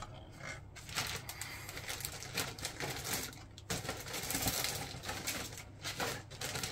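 Plastic model-kit sprues being handled and moved about: a dense run of small clicks, taps and rustles.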